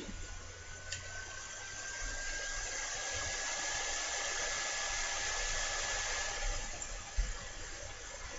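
Steady hiss with a faint high tone that rises slowly in pitch, growing louder midway and easing off near the end, with a couple of soft low thumps.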